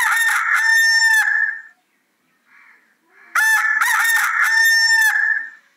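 Rooster crowing twice, each crow a long call of about two seconds. The first is already under way at the start and the second begins about three seconds in.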